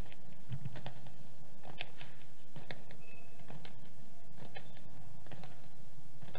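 Shoes of a troop marching in formation striking a paved road: a string of short, unevenly spaced clicks and scuffs over a low, steady hum.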